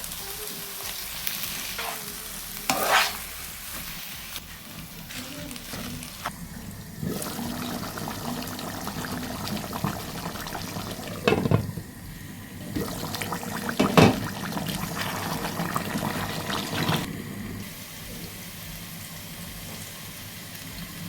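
Spiced meat frying and sizzling in oil in a cooking pot while it is stirred, with a few sharp knocks of the spoon against the pot.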